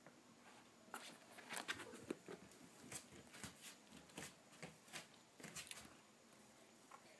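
Faint, irregular light taps and scuffs of kittens' paws scampering across a soft floor mat. They start about a second in and die away about a second before the end.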